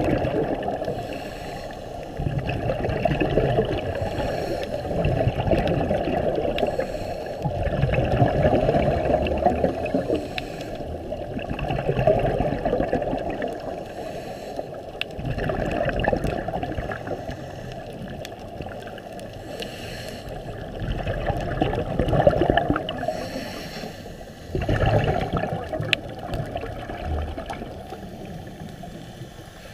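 A scuba diver's regulator breathing underwater: exhaled bubbles gurgling and rumbling, swelling and fading in surges about every three to four seconds.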